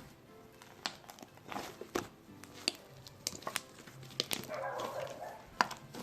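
Foamy homemade slime squished and kneaded by hand, making sticky pops and clicks, with a longer squelching stretch about four and a half seconds in.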